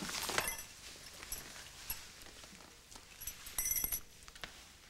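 Soft kissing sounds: quiet lip smacks as a couple kiss, thickening into a quick run of smacks near the end.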